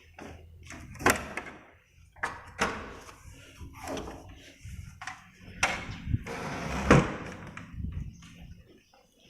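A door being handled: a series of knocks, clacks and scrapes, the sharpest about a second in and about seven seconds in.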